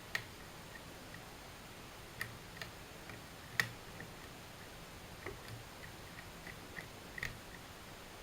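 Faint, irregular light clicks and ticks of a curtain pick working the levers inside an Era Fortress mortice lever deadbolt, lifting them one at a time; one sharper click comes about three and a half seconds in.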